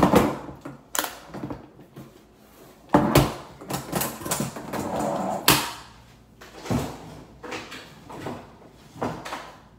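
Knocks and clatter of objects being picked up and set down on a bathroom vanity counter, half a dozen sharp knocks a second or more apart, with softer rustling between.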